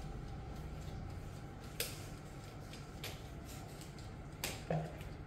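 Quiet room tone: a low steady hum with a few faint scattered clicks, one near 2 seconds, one near 3 seconds and two close together near the end.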